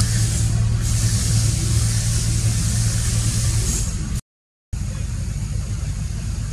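A steady low mechanical hum under a high hiss. It cuts out completely for about half a second two-thirds of the way through, then carries on a little quieter.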